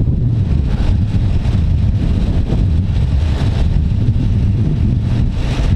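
Wind buffeting the microphone: a loud, steady, uneven low rumble.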